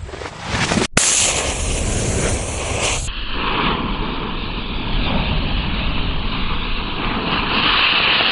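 Fuse of a 1.3G firecracker burning with a steady loud hiss, spitting sparks toward the end just before it detonates, with wind rumbling on the microphone.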